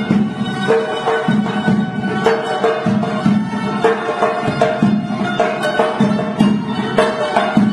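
Music in a traditional Tunisian folk style: melodic instruments over a steady percussion beat.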